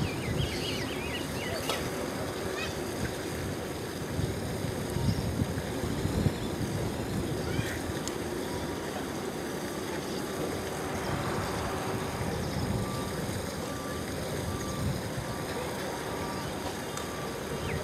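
Boeing 787 airliner's Rolls-Royce Trent 1000 engines running at low taxi power as it rolls past, a steady jet rumble and hum, with wind buffeting the microphone.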